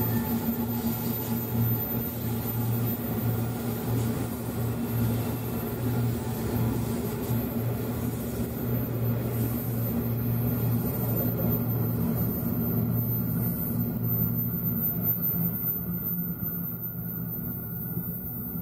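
Empty iron ore wagons rolling along the rails, a steady low hum and rumble of wheels on track. The higher part of the sound fades in the second half as the train moves away.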